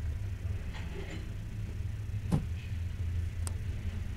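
Freight train of covered hopper cars rolling past: a steady low rumble, with a sharp click a little over two seconds in and another about a second later.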